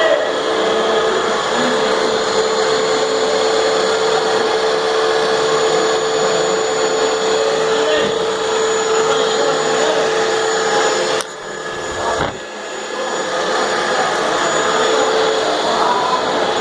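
A ZX45 drill-mill converted to a four-axis CNC, milling an arepa mold, its spindle running with a steady whine over the cutting noise. The sound dips sharply twice in quick succession about two-thirds of the way through, then resumes.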